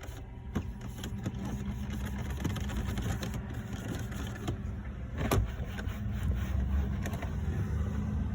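A steady low mechanical hum, engine-like, with scattered light clicks and one sharp knock about five seconds in.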